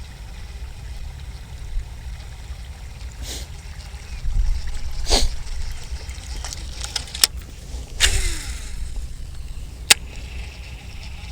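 Strong wind buffeting the microphone in a steady low rumble, with a few sharp clicks and a brief splash-like hiss about eight seconds in.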